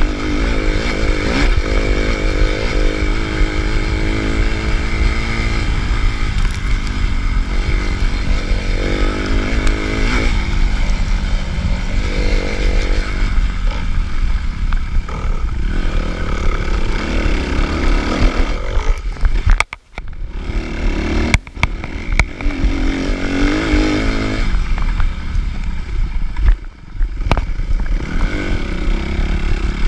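2011 Suzuki RM-Z 250 four-stroke single-cylinder motocross engine being ridden hard, its revs rising and falling as the throttle opens and closes. The sound drops out sharply a few times in the second half.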